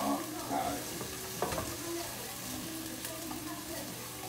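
Vegetables sizzling in a frying pan while being stirred, a steady hiss with a sharp tick about a second and a half in.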